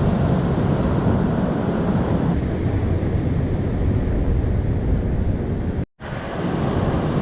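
Wind buffeting the microphone over the steady wash of ocean surf. The sound cuts out for a moment near the end.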